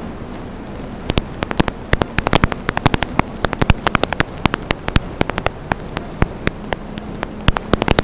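Steady hiss of static with irregular sharp crackles and pops, sparse at first and then several a second from about a second in, over a faint low hum.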